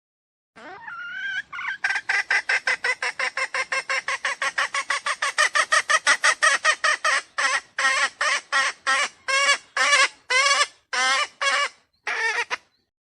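Junglefowl calling as a lure: a rising opening note, then a rapid string of clucking notes at about seven a second that slows to about two a second midway and stops shortly before the end.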